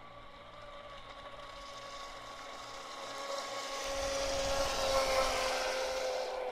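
PX-16 brushless RC speedboat running flat out: a steady high electric-motor whine that grows louder as the boat comes closer, with the hiss of the hull and spray on the water swelling from about four seconds in.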